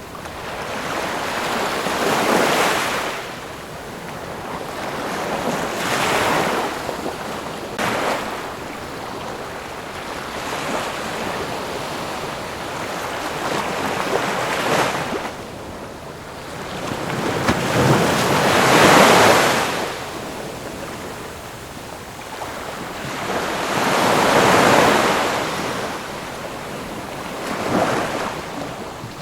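Ocean waves breaking and washing in, swelling and fading about every four seconds. The loudest surge comes about two-thirds of the way through.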